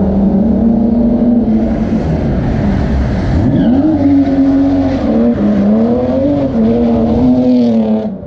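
Car engine revving hard during a drift, its pitch dropping sharply about three seconds in, then climbing and swinging up and down before falling off near the end, over a hiss of tyre and road noise.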